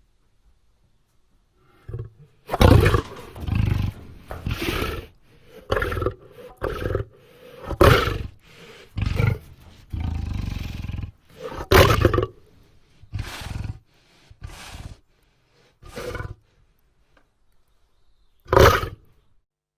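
A dozen or so loud, rough roars and snarls from a large beast, one after another with short gaps between them, starting about two seconds in.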